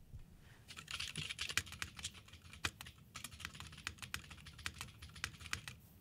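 Typing on a hand-built Monokei mechanical keyboard with a heavy solid-metal case: a quick run of key clicks starting just under a second in, with a solid sound.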